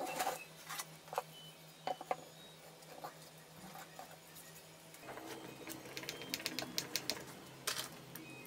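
Plywood boards knocked and set down on a wooden workbench as they are fitted together, a few sharp knocks in the first two seconds. Later comes a quick run of light clicks as loose screws are handled on the bench.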